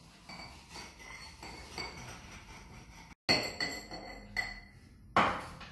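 Fresh apple quarters and sugar being muddled in the glass of a cocktail shaker: a run of irregular glassy clinks as the muddler strikes the glass, louder in the second half.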